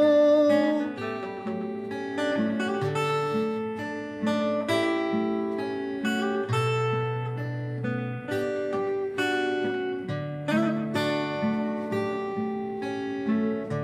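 Acoustic guitar playing an instrumental break between sung verses: plucked and strummed chords over a moving bass line, at a steady, unhurried pace.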